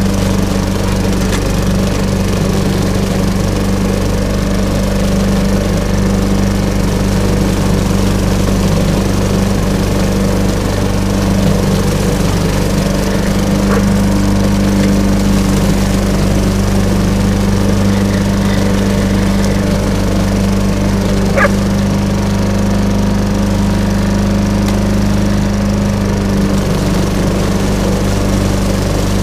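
Walk-behind gas lawnmower engine running steadily under load while mowing through fallen leaves, with one short sharp sound a little over two-thirds of the way in.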